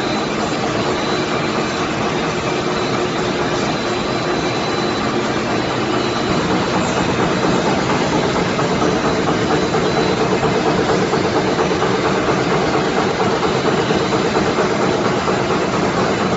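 Wet wipes production line machinery running at high speed: a steady, dense mechanical noise with a few steady tones, growing slightly louder about halfway through.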